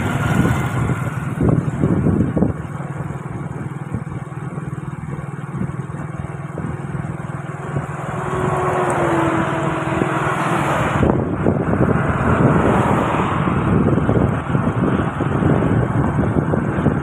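Steady engine, road and wind noise from a moving vehicle on a highway. About halfway through, an oncoming coach bus passes and the noise swells for several seconds.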